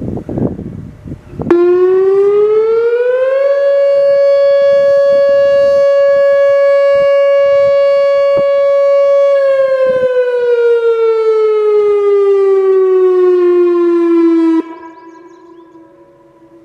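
Whelen WPS-2750 electronic outdoor warning siren, on an ESC-2020 controller, sounding a short alert. The tone rises for about two seconds, holds steady near 560 Hz for about six, then winds down over about five seconds and cuts off, leaving a brief fading echo. A low rumble comes before the tone starts.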